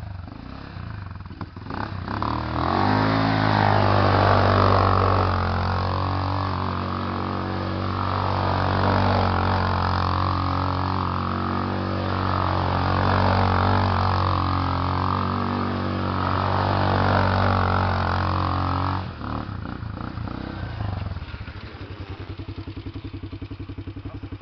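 Sport quad bike (ATV) engine being revved and ridden hard, its pitch and loudness rising and falling in waves, then dropping to a quieter, evenly pulsing idle about nineteen seconds in.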